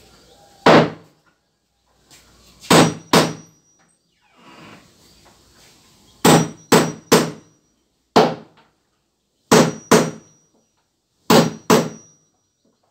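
Hammer driving nails into wooden floor planks: about eleven sharp strikes in quick groups of one to three, some leaving a short high ring.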